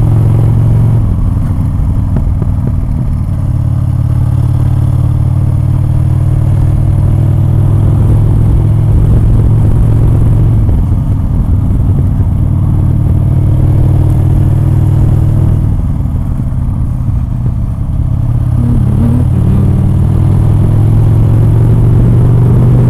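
Motorcycle engine running at road speed under heavy wind rumble on the helmet microphone. The engine note climbs slowly several times as the bike picks up speed.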